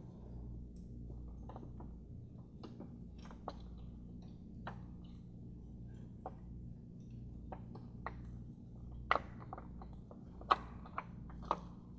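Irregular small metallic clicks and taps as a VW 2.5L five-cylinder's vacuum pump is worked loose from the cylinder head by hand and screwdriver, the sharpest few near the end, over a steady low hum.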